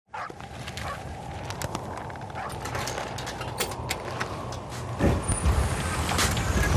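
Night street ambience: a steady low hum and hiss with scattered sharp clicks, and a low rumble that swells about five seconds in.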